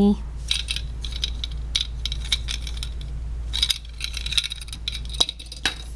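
Small hard plastic Lego pieces clicking and rattling as they are handled and set down: a string of light clicks.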